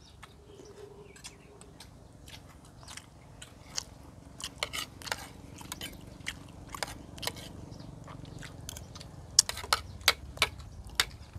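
People chewing and crunching food close to clip-on microphones: irregular crisp clicks, coming thicker and louder near the end.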